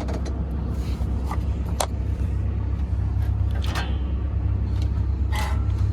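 Case CX240B excavator's diesel engine idling, a steady low rumble heard from inside the cab, with a few short clicks over it.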